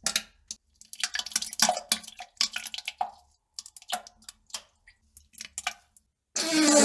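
A person defecating: irregular wet crackling and spluttering bursts, with a louder, pitched fart near the end.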